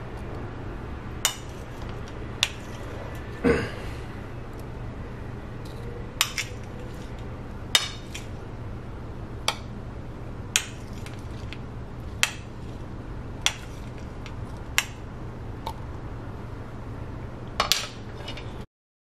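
Metal spoon clinking against a plastic cup while scooping chopped fruit: about a dozen sharp clicks, spaced a second or so apart, over a steady low hum. The sound cuts out just before the end.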